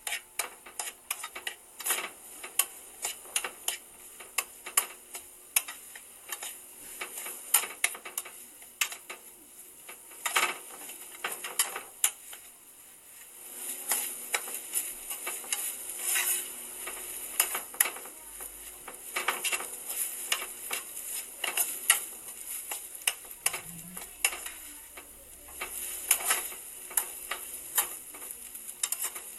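Kimchi fried rice being stir-fried over raised heat: a utensil scrapes and knocks against the pan in quick, irregular strokes over a steady sizzle, which grows louder about halfway through.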